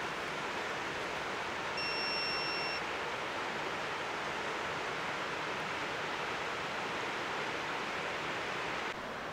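A portable espresso machine gives a single electronic beep, about a second long, starting near two seconds in, over a steady rushing hiss.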